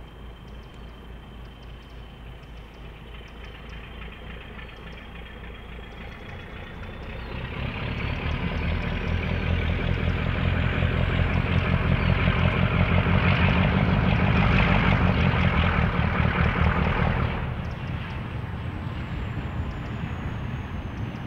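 Diesel locomotive engine idling, then throttling up about a quarter of the way in as the locomotive moves off, with a high whine that climbs in pitch. Near the end the engine eases back to a lower, steady note and the whine slowly falls.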